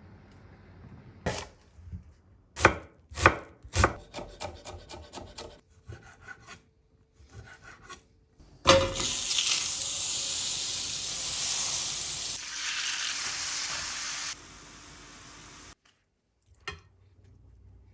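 Knife chopping on a cutting board: a few heavy chops, then lighter, quicker ones. About halfway through, a loud, steady hiss starts abruptly with a thump. It runs for several seconds, drops to a softer level, and then cuts off.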